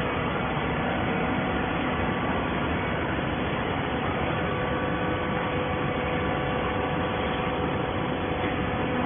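Scrap carton baler machine running: a steady mechanical hum with a few faint steady tones, unchanging throughout.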